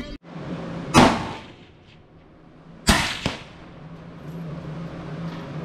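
Two gunshots about two seconds apart, each a sharp crack with a short echoing tail, the second followed closely by a fainter crack.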